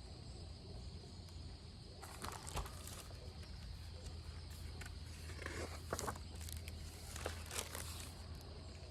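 Faint rustling and handling noises, a scattering of short scrapes and clicks over a few seconds, over a steady low hum.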